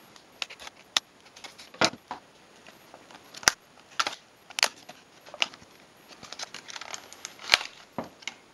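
Retail packaging of a shift knob and its adapters being opened carefully by hand: a string of irregular sharp clicks, snaps and crackles with some handling rustle.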